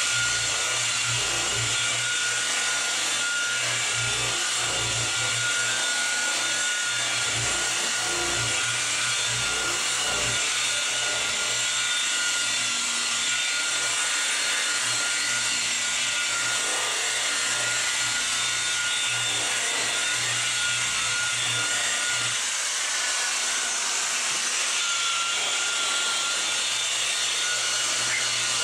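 Electric rotary polisher running steadily with a foam buffing pad pressed against a car door's painted panel, a steady motor whine over the rubbing of the pad on the paint.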